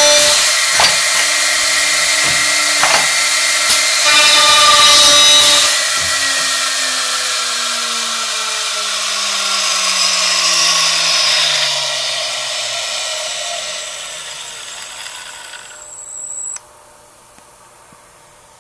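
Spindle motor of a US Concepts CRD-300 automatic handrail drilling machine running at the end of drilling baluster holes in a wooden handrail, with a few sharp knocks from the machine. About six seconds in it is switched off and spins down in a long falling whine that fades away.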